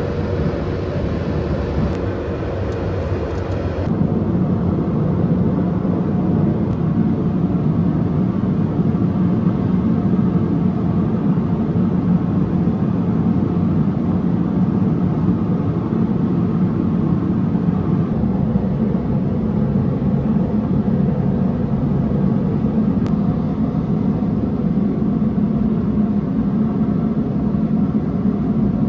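Steady, loud low roar from a machine running continuously, with a change in character about four seconds in.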